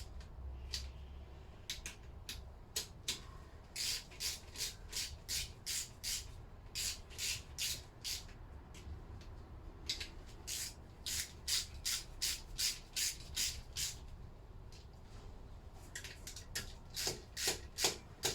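Ratchet wrench clicking in runs of quick back-and-forth strokes, about two to three a second, as bolts are run down on the engine.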